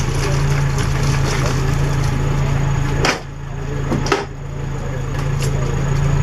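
Vehicle engine idling with a steady low hum, and two sharp knocks about a second apart near the middle.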